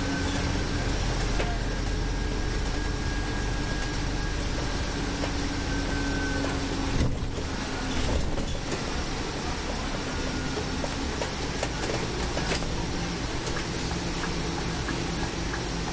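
Scania Citywide city bus driving, heard from the driver's seat: the engine and drivetrain run steadily with a whine, and the pitch shifts up a little in the last few seconds. A single thump comes about seven seconds in.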